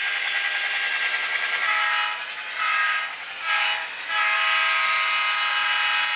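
HO-scale GP9 model locomotive's Tsunami sound decoder, heard through its small onboard speaker. Over the steady diesel engine sound, the horn sounds three short blasts and then a long one: a grade crossing horn sequence.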